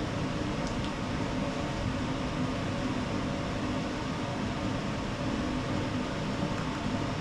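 Steady whir of a shop fan running, an even hiss with a low hum beneath it.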